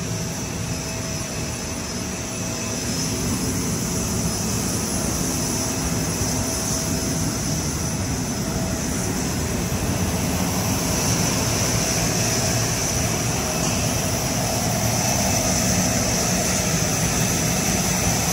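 Jet engine running, a steady rush with a high whine, growing louder about three seconds in and again around eleven seconds in.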